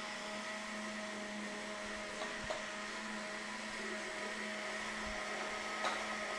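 Countertop blender motor running steadily while blending a walnut cream sauce (nogada). A couple of faint knocks come partway through and near the end.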